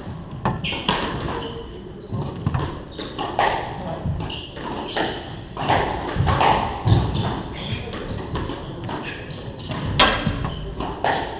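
Squash rally: the ball struck by rackets and knocking off the court walls in a string of sharp smacks, the loudest about ten seconds in, with voices murmuring behind.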